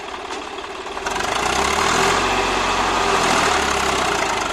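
Swaraj 744 FE tractor's three-cylinder diesel engine running steadily, then revving up about a second in and holding there, louder, under heavy load. The rear tyres are digging into loose sand while it pulls a loaded trolley.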